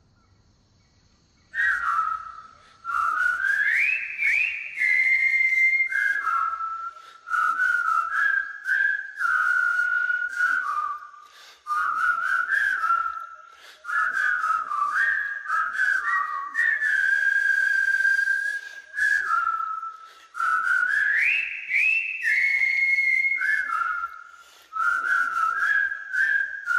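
A person whistling a slow melody, phrase by phrase, with short breaks for breath between the phrases.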